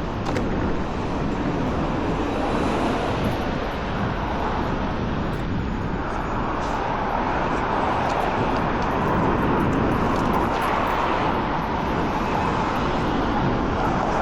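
Busy city street traffic: a continuous rush of passing cars' tyres and engines, growing a little louder about halfway through as vehicles pass closer.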